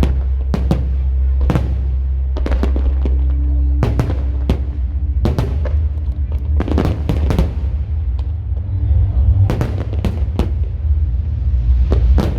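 Fireworks going off in a rapid, irregular string of sharp bangs, some louder than others, over loud music with a heavy low drone.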